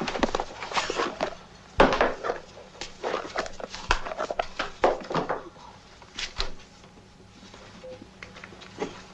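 A woman being roughly manhandled in a struggle: scuffling, thuds and rustling clothing mixed with her gasps and cries, busiest in the first half and thinning out later.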